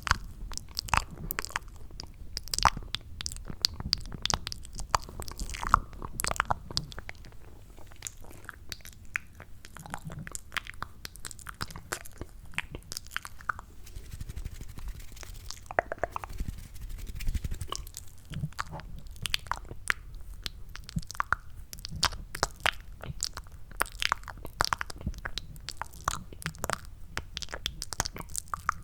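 ASMR mouth sounds made close to the microphone with hands cupped around the mouth, imitating the sound of chewing mac and cheese: a dense, irregular run of small clicks and smacks.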